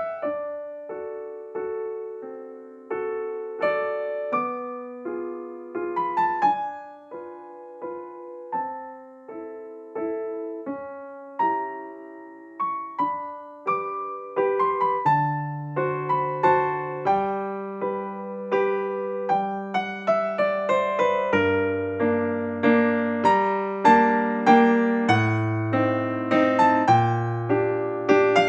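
Background music: soft solo piano playing a slow melody, with lower bass notes joining about halfway through.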